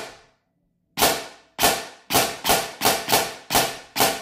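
Krytac SPR-M airsoft electric gun with a Gate Aster MOSFET firing single semi-auto shots, eight in about four seconds. Each is a sharp crack of the gearbox cycling, with a short ringing tail, and the shots come closer together in the middle.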